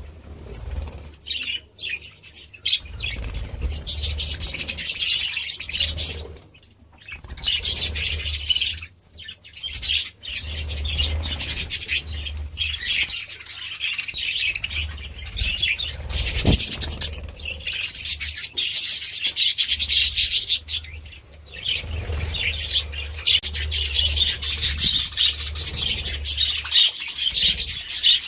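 A flock of budgerigars chattering and warbling, a dense, rapid run of chirps that breaks off briefly twice, about 7 and 9 seconds in, over a low rumble.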